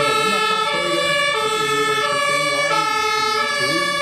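Electronic two-tone fire engine siren sounding hi-lo, switching between a high and a low note about every two-thirds of a second.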